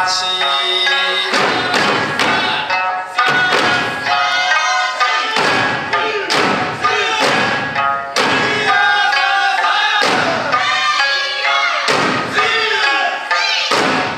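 Okinawan Eisa drumming: large barrel drums (ōdaiko) and small hand drums (paranku) struck together with heavy thuds every second or two, in time to a sanshin and a man singing a folk song.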